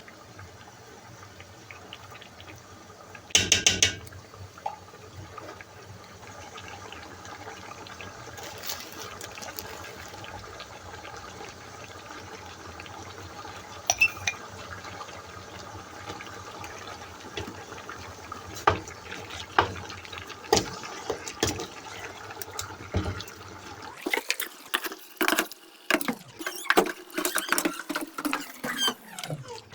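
Running water in a kitchen with scattered clinks of utensils and dishes, a short loud ringing clatter early on, and a quick run of clattering near the end.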